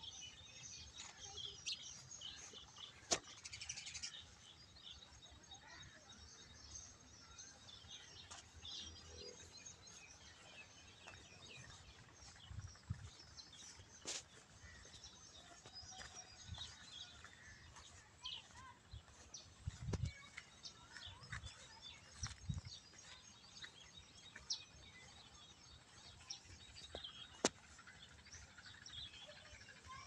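Small birds chirping off and on, fairly faint, with scattered sharp clicks and a few low thumps.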